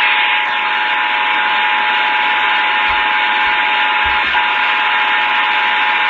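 Emergency Alert System attention signal received over the radio: a steady two-note tone held throughout under a constant hiss of radio static.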